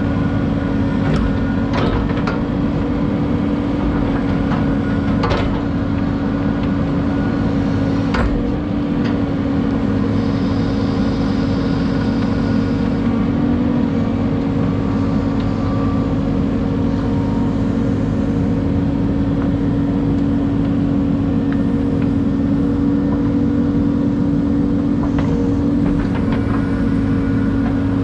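Excavator's diesel engine running steadily under load while digging, a constant drone, with a few sharp knocks scattered through it.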